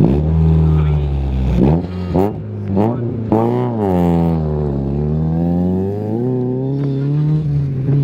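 Rally car engine revving hard: the revs climb sharply four times in quick succession, then settle into one long note that sinks and climbs again as the car drives on.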